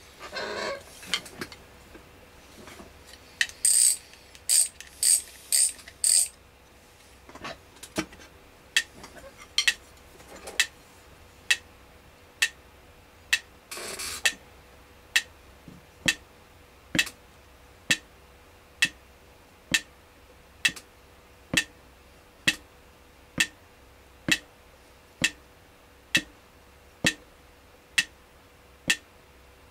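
A ball-tipped stick tapping a pad, at first in a quick group of five louder, brighter strikes, then in a slow, even beat of single taps a little under one a second.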